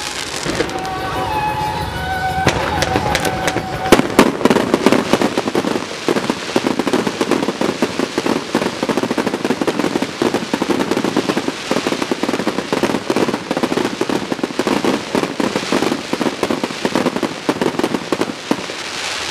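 Fireworks display: steady high tones over the first few seconds, a loud bang about four seconds in, then dense continuous crackling from many small bursts.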